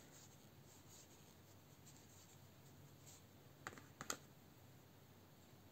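Near silence: faint handling of a metal crochet hook working yarn, with a few soft clicks about four seconds in.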